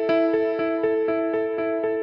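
Electronic music: a held chord over a steady pulse of notes, about four a second, with the chord changing at the very end.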